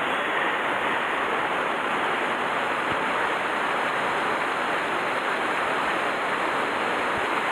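Shallow mountain stream running over rocks and a small cascade: a steady, even rush of water.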